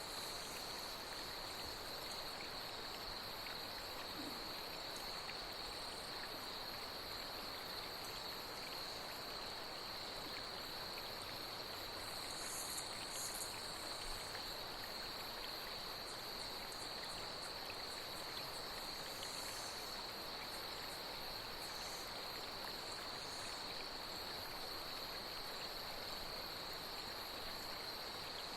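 Night insects trilling in one steady high unbroken tone over a flowing stream, with a few brief higher chirps around the middle.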